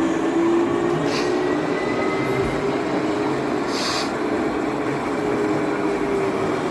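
Model train running on an exhibition layout: a steady hum that wavers slightly in pitch, with two brief hisses about a second and four seconds in.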